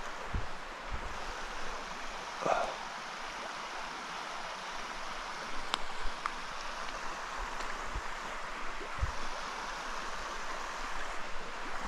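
Small mountain stream rushing over slate rock, a steady wash of water, with a few soft low thumps and a single sharp click about six seconds in.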